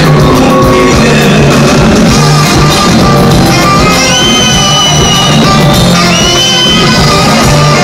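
Loud live band music over a concert PA, with a high held note sounding twice in the second half.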